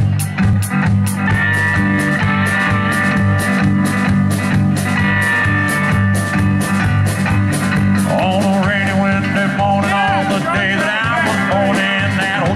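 Live country band playing an up-tempo song on electric guitars, bass and drum kit, with a steady drum beat and a held lead line over the intro; a man's singing voice comes in about eight seconds in.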